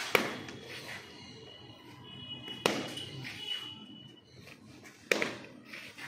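Cricket bat striking balls fed underarm, three sharp knocks about two and a half seconds apart.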